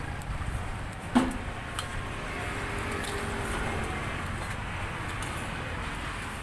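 Light clicks and scrapes of a metal spatula on a flat griddle as khanom bueang crepes are folded and lifted off, over a steady low background rumble. A sharp click about a second in is the loudest sound.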